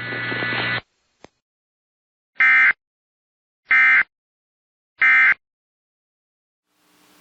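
Emergency Alert System end-of-message signal: three identical short data bursts of SAME code, about 1.3 s apart, marking the end of a NOAA Weather Radio alert broadcast. A steady hum cuts off in the first second, and a faint hiss starts near the end.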